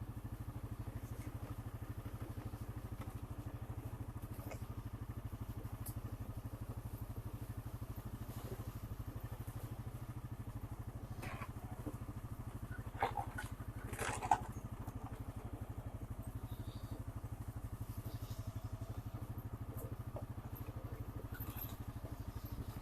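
Honda Rancher 420 ATV's single-cylinder engine running steadily at low revs while riding down a steep trail. A few short knocks and rattles come a little past halfway.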